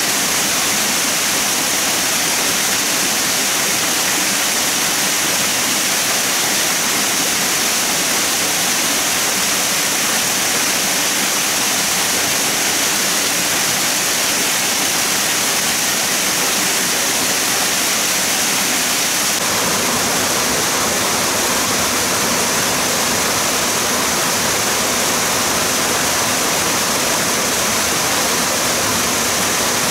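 Steady rushing water, its sound shifting slightly about twenty seconds in.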